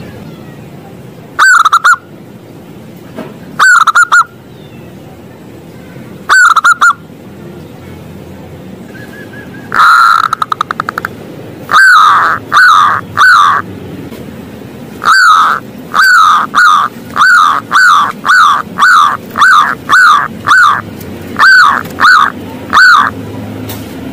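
Zebra dove (perkutut) cooing. It gives short ringing notes in groups of two or three for the first several seconds, a quick rolling trill about ten seconds in, then a long run of notes at about two a second.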